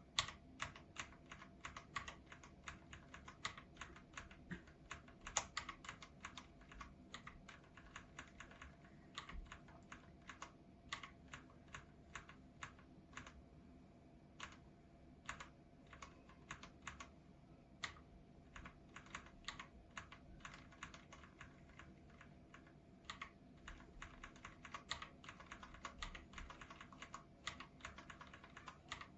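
Typing on a KOORUI MK082 mechanical keyboard: an irregular, quick run of key strikes that thins out for a few seconds about halfway through.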